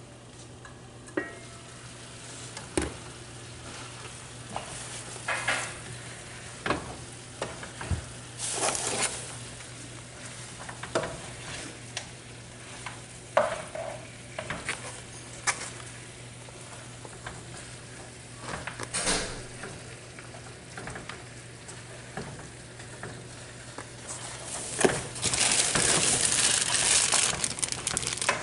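Chicken curry sizzling as it cooks down in the pot, with scattered knocks and clicks as spice jars and packages are picked up and set down on the counter. Near the end, a plastic bag crinkles loudly as it is handled.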